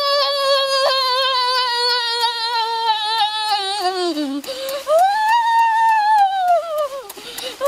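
A boy humming two long, drawn-out 'mmm' tones of relish with his mouth full of food. The first is held steady for about four seconds and slides down at the end; the second rises and then falls away about a second before the end.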